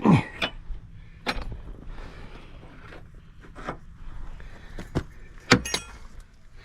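Scattered metal clanks and clinks from steel parts and tools being handled while swapping the attachment on a skid steer without quick-attach. The loudest, about five and a half seconds in, rings briefly, over a low steady rumble.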